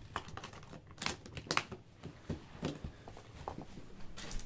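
A hard guitar case being handled and shut: about six separate clicks and light knocks, irregularly spaced.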